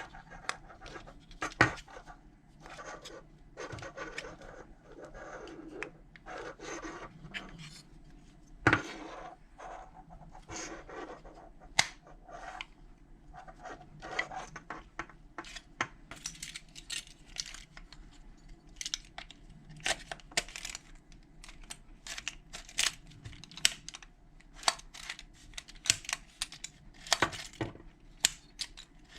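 Small metal lock parts and keys being handled: irregular light metallic clicks, taps and scrapes, coming faster in the second half.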